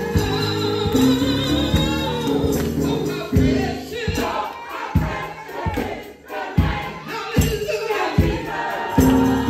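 Gospel singing by a church choir and congregation over held instrumental chords. From about three seconds in, a steady beat lands roughly once every 0.8 seconds.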